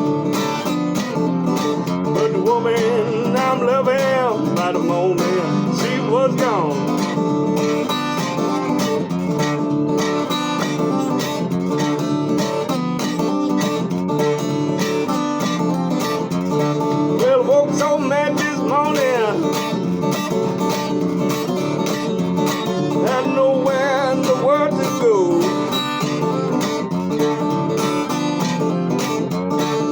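Country-blues acoustic guitar music: steady strummed chords, with a wavering, pitch-bending lead line coming in three times over the chords.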